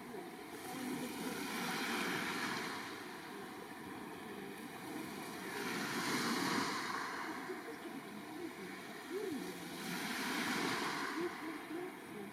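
Sea waves breaking and washing up the shore, three surges about four seconds apart, with wind buffeting the microphone.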